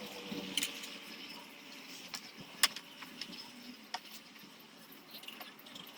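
A few sharp, light clicks and knocks scattered over a faint steady hiss; the loudest comes about two and a half seconds in.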